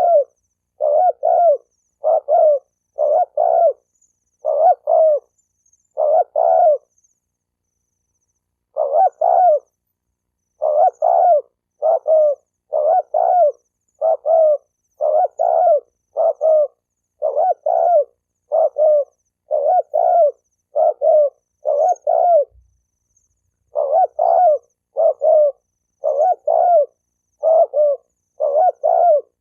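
Spotted dove cooing: short, low, two-part coos repeated about once a second, with two brief pauses in the series.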